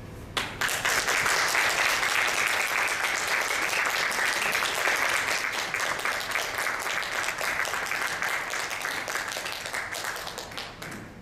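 Audience applauding, breaking out suddenly about half a second in and tapering off near the end.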